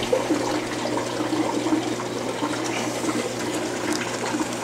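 Reef aquarium water circulating, a steady rush and splash of moving water with a low steady hum beneath it.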